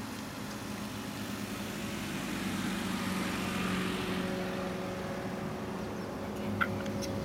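A motor vehicle passes by, its noise swelling to a peak midway and easing off, over a steady low engine hum; a couple of faint clicks near the end.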